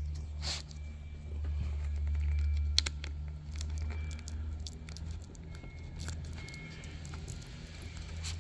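Hands working on a laptop's screen and its parts: scattered light clicks and crinkling of plastic or tape, over a steady low hum.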